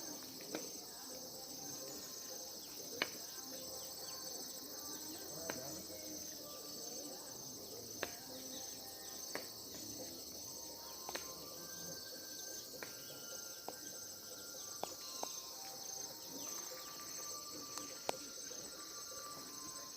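A chorus of insects chirping steadily in several high-pitched bands, the highest one pulsing rapidly. Scattered short sharp clicks sound every few seconds.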